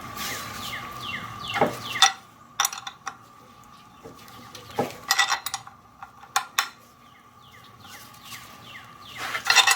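Metal clinks, knocks and scrapes of a wrench, nut and washers on a threaded press as a power steering pump pulley is pressed onto its shaft, with a handful of sharp clinks scattered through and a few short squeaks.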